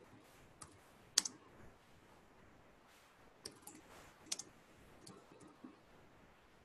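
Computer keyboard keystrokes, sparse and quiet, with a sharper click about a second in and small runs of taps in the middle.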